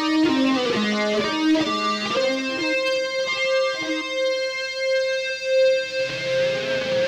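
Electric guitar played through a Line 6 M13 effects unit: a quick run of single notes, then one long sustained note held for about four seconds, with the sound thickening and wavering near the end.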